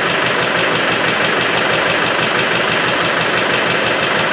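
Rebored Land Rover Defender engine idling steadily with an even rhythmic beat. It has a chuffing noise at the back and excess blow-by at the breather, which the owner puts down to a broken piston ring or bores taken out too big.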